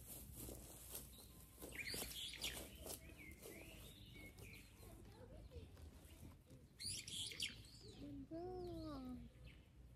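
Faint bird chirps and calls, with a louder call about seven seconds in. Light rustling and footsteps can be heard among them. Near the end there is a short low hum-like sound that rises and falls in pitch.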